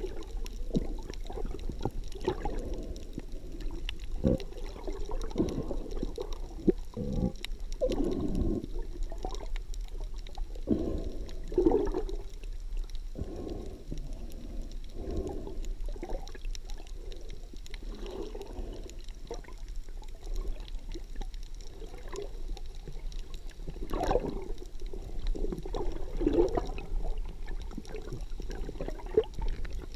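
Water heard from just below the surface: muffled, irregular sloshing and gurgling, rising and falling, with a few sharp knocks.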